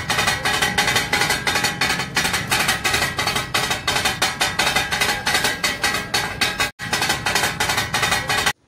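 Upbeat intro music driven by fast, busy percussion, with many quick hits each second. It drops out for an instant near the end, comes back, then stops suddenly.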